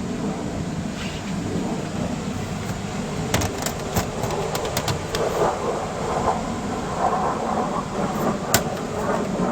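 A steady low rumble of a vehicle running, with a cluster of sharp clicks or rattles in the middle and one louder click near the end.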